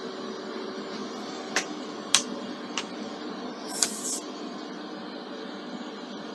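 Household water pump running with a steady hum while water is being drawn in the house. A few light clicks and a short hiss come about two to four seconds in.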